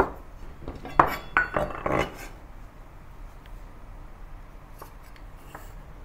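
Chef's knife knocking on a wooden chopping board as it cuts through a block of palm sugar, and clinking against a small stainless-steel bowl as the pieces are pushed in: a handful of sharp knocks and clinks, some briefly ringing, over the first two seconds.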